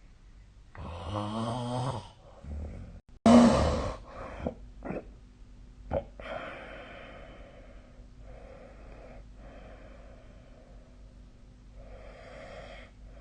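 A sleeping person snoring: loud snores in the first four seconds, the loudest about three and a half seconds in, then a few short snorts and quieter noisy breaths about every two seconds. A faint steady hum lies underneath.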